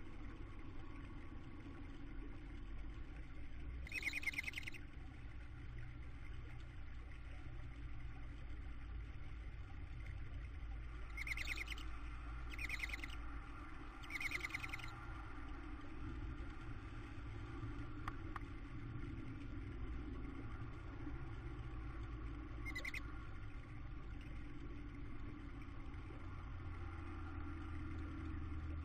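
Tawny owl chicks giving short, high, hissing begging calls: one about four seconds in, three in a row around the middle, and one brief call later. A steady low hum runs underneath.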